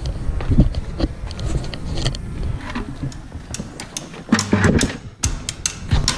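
Camera handling noise: rubbing, knocks and clicks as the camera is carried and set down low inside a steel dumpster, ending in a quick run of sharp clicks.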